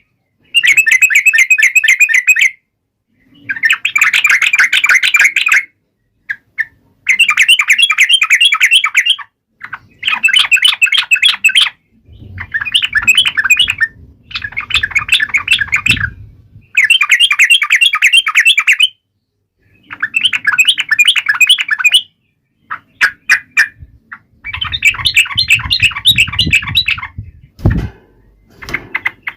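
Yellow-vented bulbul (trucuk) singing in loud bursts of fast chattering notes, each about two seconds long, with short pauses between them. This is the energetic 'gacor' song kept-bird owners play to provoke other birds. A low rumble sits under some of the phrases, and there is a single thump near the end.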